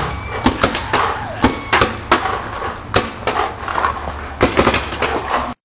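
Paintball marker firing in quick bursts of sharp pops, several shots a second with short gaps between strings, over a steady low hum.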